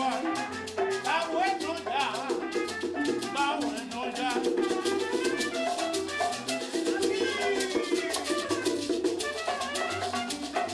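Cuban dance music played live by a small band: a steady percussion rhythm over a bass line, with melody above.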